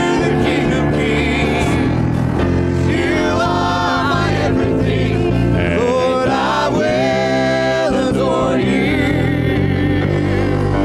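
Live gospel worship band playing with singers, a lead voice and backing voices over keyboard, guitars and drums; the singing holds long notes around the middle.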